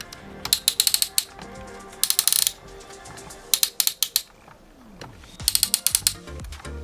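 A diecast toy truck's ratcheting joint clicking in four quick runs as a part is moved, likely the concrete pump truck's boom or outriggers. Quiet background music plays underneath.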